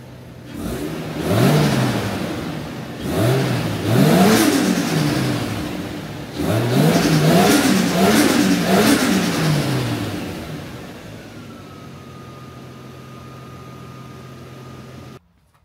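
Toyota 1JZ turbocharged straight-six on its stock exhaust, idling and then free-revved in a series of blips. Each rev climbs and falls back, with a quick run of several revs in the second half. It then settles back to a steady idle with a thin steady whine.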